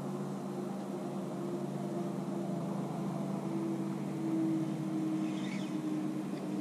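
Bass boat's electric trolling motor running with a steady low hum, with a slightly wavering higher tone over it.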